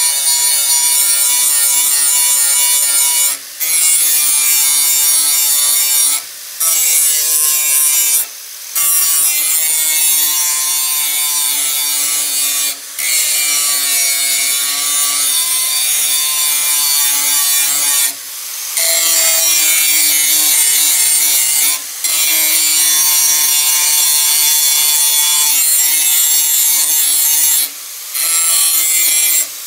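Handheld angle grinder with an abrasive disc grinding steel: a loud, steady hiss over the motor's whine, the pitch wandering as the disc bites, broken by about seven brief dips where the disc comes off the work.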